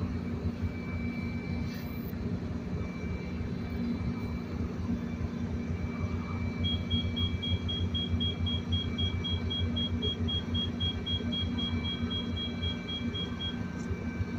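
Metrolink MP36PH-3C diesel locomotive standing and idling: a steady low rumble with a throbbing beat. From about seven seconds in, a rapid high beeping, about four beeps a second, goes on for about seven seconds and stops.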